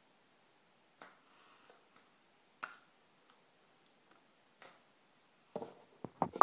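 Scattered soft clicks and taps from hands moving and touching while signing, then a cluster of louder knocks and bumps near the end as a hand reaches for and handles the recording device.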